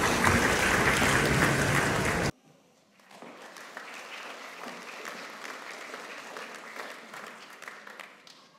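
Audience applauding in a hall. It is loud for the first two seconds, then cuts off abruptly to quieter applause that dies away near the end.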